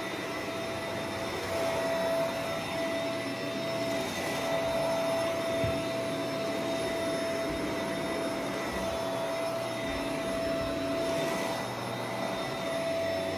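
Stick vacuum cleaner running on carpet: a steady motor whine over a rush of air, unbroken as the vacuum is pushed along.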